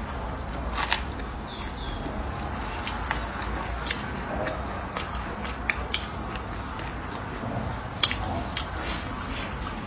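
A person eating with chopsticks close to the microphone: chewing and wet mouth sounds, with several sharp clicks as the chopsticks tap the ceramic bowl, over a steady low hum.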